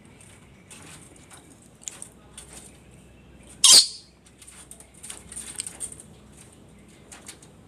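Red-and-blue lory making scattered soft, high squeaks and scratchy rustles, with one short, loud, harsh burst about four seconds in.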